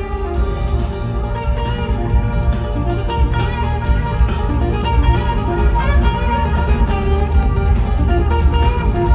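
Live band music, with guitar playing melodic lines over a steady bass.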